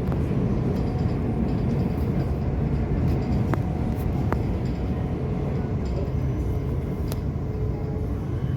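Steady low rumble of a passenger train running, heard from inside the carriage, with a few faint clicks.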